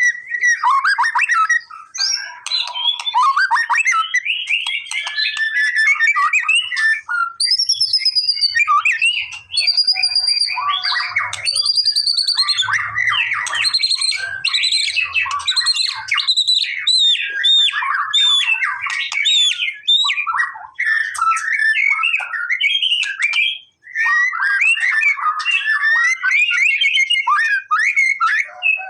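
White-rumped shama (murai batu) singing a long, varied song of rich whistles, warbles and chattering notes, with almost no pauses, the kind of song played to provoke a quiet shama into singing.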